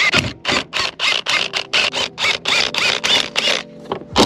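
Hand ratcheting driver with a 10 mm socket clicking in quick, even bursts, about three a second, as it is swung back and forth to back out a shifter mounting bolt.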